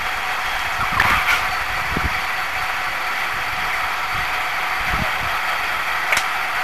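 Engine running steadily, with a couple of light knocks.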